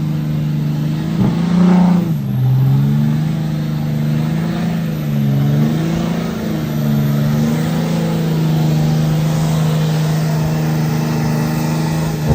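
Turbo-diesel pickup engine running hard under load while pulling a weight sled. The revs dip and recover about two seconds in, waver again near the middle, then hold steady.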